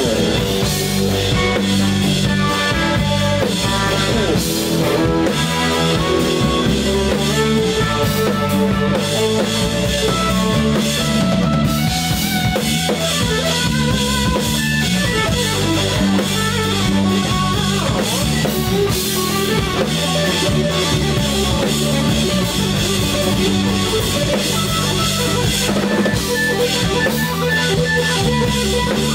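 Live rock band playing an instrumental passage: a Telecaster-style electric guitar playing lead lines with bent notes over electric bass and a drum kit.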